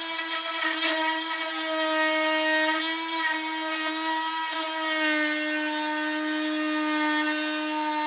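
Dremel Trio rotary cutting tool running at a steady high pitch as its bit goes back over a cut in old wood. The pitch drops slightly about five seconds in.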